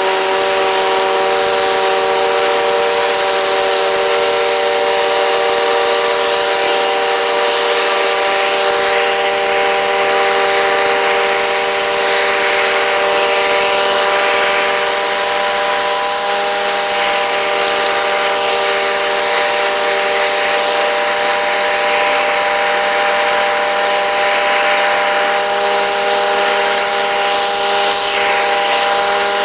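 Eureka PowerSpeed upright vacuum running steadily, a high motor whine over the rush of suction air, the hiss brightening and fading in patches as it is pushed back and forth over the floor.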